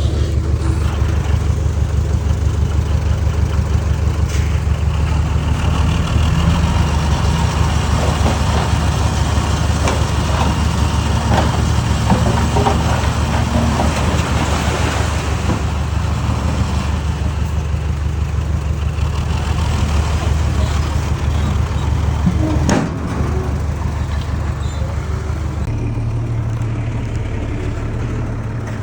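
Heavy earthmoving machine's diesel engine running steadily, with scattered metallic clanks in the middle and a sharp knock about 23 seconds in; the engine note changes shortly after.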